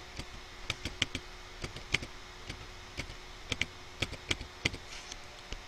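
Computer keyboard keys pressed one at a time while typing in a string of digits: about a dozen short, irregularly spaced clicks.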